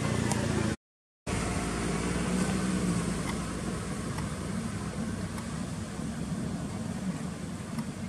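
Steady outdoor background rumble, cut to silence for about half a second about a second in.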